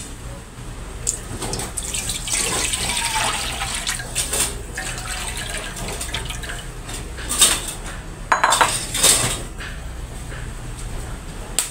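Coconut milk, the thin second pressing, poured from a bowl into an empty metal wok: a splashing stream for a few seconds, then several sharp clinks of the bowl against the wok about two-thirds of the way through.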